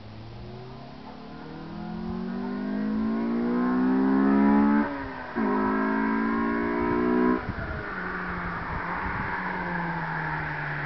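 Honda Civic's B18C4 four-cylinder engine through a 2.36-inch OEM-look exhaust, accelerating with its note rising for about five seconds. There is a short break near five seconds, then two seconds of steady high revs. After that the throttle closes abruptly and the note falls away slowly.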